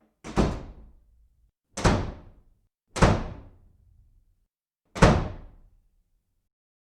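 Four loud, sudden thuds at uneven intervals, each dying away over about half a second.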